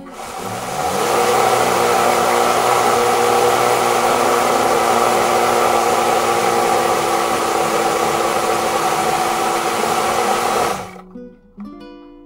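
Oster countertop blender running: the motor spins up over the first second, then runs steadily at a loud level, blending rice batter. It cuts off abruptly near the end, leaving acoustic guitar music.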